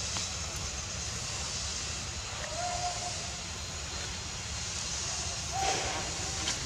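Baby macaque giving two short, thin crying calls, one about two and a half seconds in and one near the end. They sit over a steady low rumble and hiss.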